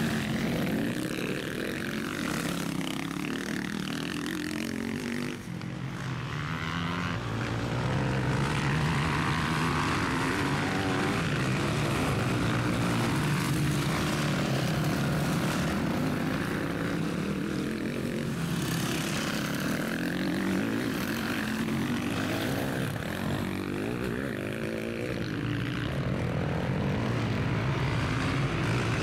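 Motocross bike engines revving hard and easing off as riders race past, the pitch rising and falling over and over.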